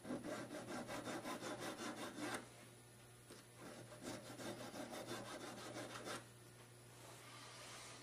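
Small hand file scraping across the cut ends of a gold ring shank in quick back-and-forth strokes, about five a second, filing off the burrs so the ends line up. There are two runs of strokes, each two to three seconds long, with a short pause between them.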